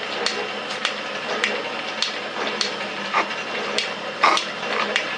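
Metal shaper running while cutting gear teeth: a steady motor hum with a sharp click at each ram stroke, about one stroke every 0.6 seconds.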